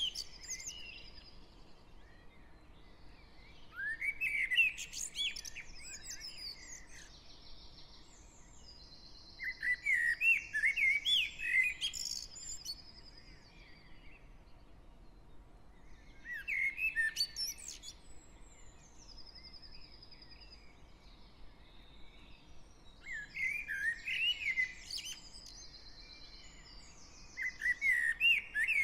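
Dawn chorus of garden songbirds. One loud bird sings warbled phrases of two to three seconds, about every six seconds, each ending in higher squeaky notes. Fainter high trills and chirps from other birds carry on in the gaps.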